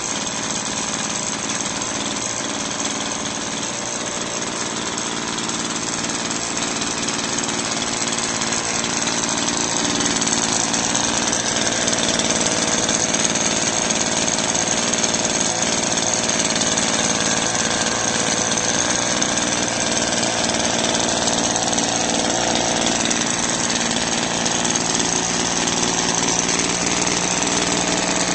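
Craftsman gas edger's small engine running steadily after a cold start, getting a little louder about ten seconds in.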